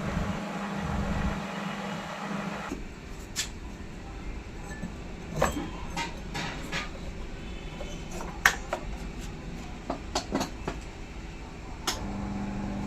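Washing machine motor humming steadily, cutting off about three seconds in and starting again near the end. In between come scattered sharp clicks and knocks, the loudest a little past halfway.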